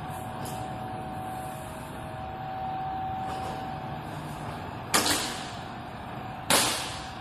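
Two sharp snaps about a second and a half apart near the end, over a steady background hum: karate uniforms snapping as the kata's strikes and kicks are thrown, each snap dying away briefly under the metal roof.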